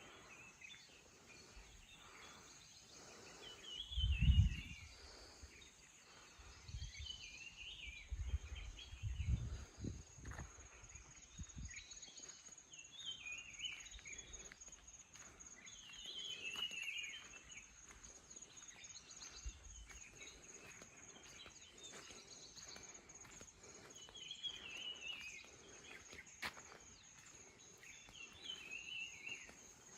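A songbird repeating a short phrase of several notes about every four seconds, over a steady high insect drone. A few low rumbles and thumps come through, the loudest about four seconds in and more between about seven and twelve seconds.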